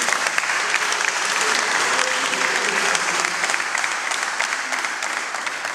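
A roomful of people applauding, the clapping dying down near the end.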